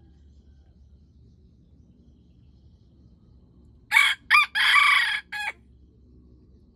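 A junglefowl rooster crows once, about four seconds in: two short notes, a long middle note and a clipped final note, about a second and a half in all.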